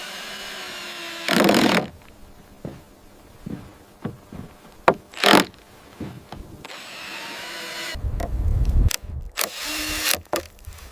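Several short, loud bursts of a tool working wood.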